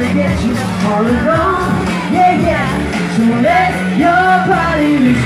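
Live pop music from the stage: a male boy-band's singing over a backing track with a steady beat.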